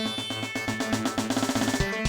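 Polyphonic ringtone from a Motorola phone, taken straight from its audio output: a synthesized tune over drum notes. A quick run of repeated notes builds up and gives way to heavy bass-drum hits near the end.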